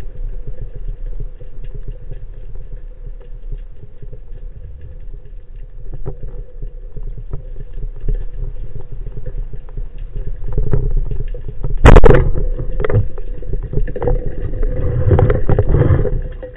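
Low steady underwater rumble with scattered small clicks, heard through a camera on a rubber-band speargun. About twelve seconds in, one sharp loud crack as the speargun fires, then a flurry of knocks and rustling.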